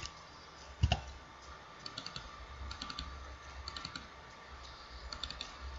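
Faint computer mouse clicking: a sharp click at the start, a duller knock about a second in, then several short runs of quick light ticks, over a low steady hum.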